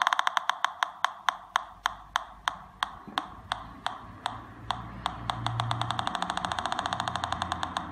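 Homemade Pi Polonez pulse-induction metal detector's speaker ticking at its threshold: sharp clicks about three a second at first, coming faster in the second half.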